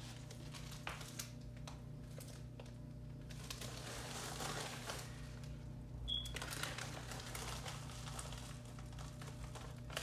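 Faint crinkling and rustling of plastic packaging as a 1/14 RC car body is handled, with scattered light clicks over a steady low hum. One brief high chirp comes about six seconds in.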